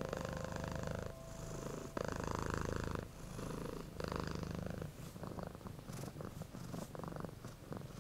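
Cat purring in a slow rhythm of breaths, about one swell a second.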